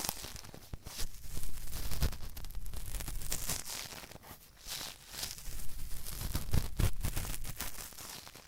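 Ear-cleaning strokes scraping and rubbing inside a binaural microphone's ear: a run of irregular scratchy strokes, softer for a moment about halfway through.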